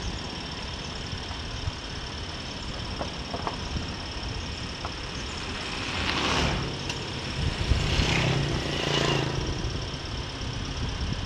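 Steady engine and road noise from a motorcycle riding along an asphalt road, with a steady high-pitched tone over it. Oncoming scooters pass about six seconds in and again around eight to nine seconds in, each swelling and fading away.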